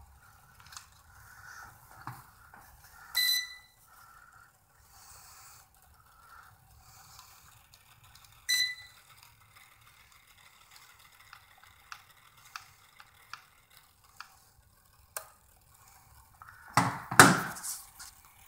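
Radio transmitter of a WLtoys V222 quadcopter beeping twice, each a short electronic beep about five seconds apart, with faint clicks of its controls in between. A loud rustle of handling near the end.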